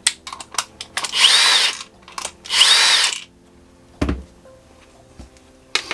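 A cordless drill-driver runs in two short bursts, its motor pitch rising then falling in each, backing screws out to open the battery. Small clicks and handling knocks come around the bursts, with a thump about four seconds in.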